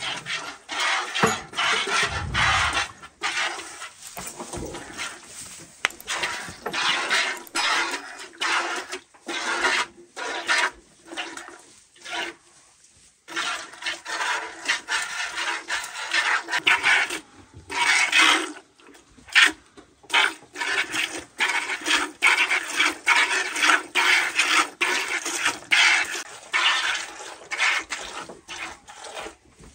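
A cow being milked by hand: milk squirting from the teats into a plastic bucket in rhythmic spurts, with a few brief pauses.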